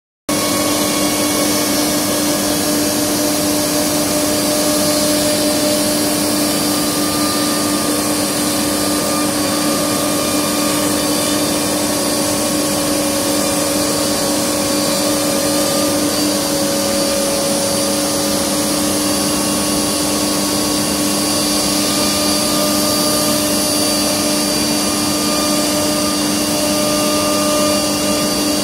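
Piranha ATC 1325 CNC router cutting MDF: a steady spindle whine of several held tones over the rushing noise of the cut and the dust extraction.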